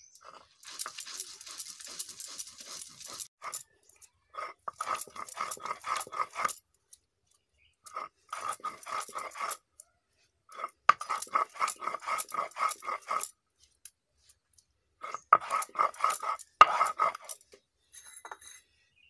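Stone roller rubbed back and forth on a flat grinding stone (Bengali shil-nora), grinding spinach to a paste: bursts of quick scraping strokes, about five a second, with short pauses between bursts.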